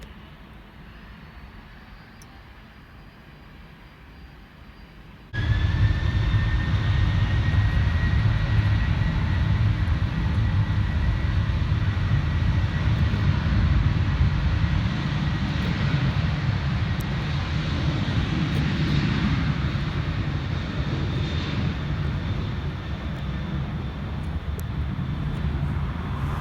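Jet airliner's turbofan engines. The sound jumps in abruptly about five seconds in after a faint steady hum, then goes on loud with a deep rumble and a steady high-pitched fan whine, easing slightly near the end.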